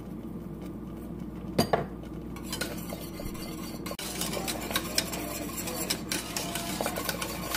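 A utensil stirring white sauce in a metal pot, with frequent light clinks and scrapes against the pot and one sharper knock about a second and a half in.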